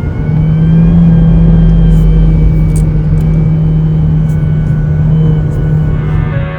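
2020 Honda Civic turbocharged engine running at a steady speed, a loud steady low drone with a faint thin high turbo whistle over it.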